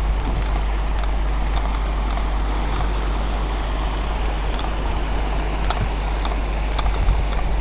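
Steady rush of white water pouring through an artificial slalom canoe course, with a constant low rumble underneath.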